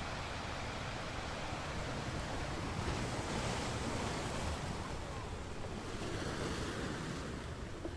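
Ocean waves breaking and washing on a shore, with one wave swelling and hissing in about three seconds in, then easing off.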